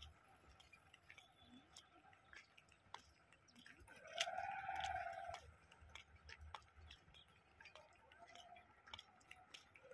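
Quiet outdoor background with scattered faint ticks. About four seconds in, a single pitched call rises and falls over just over a second.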